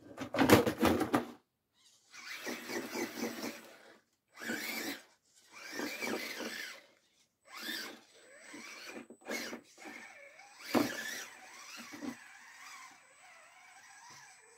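RGT Bowler 1/10 RC crawler's electric motor and gearbox whining in short bursts of throttle, with tyres and chassis scraping on wood. The first and loudest burst, at the start, is a clatter as the truck tips over.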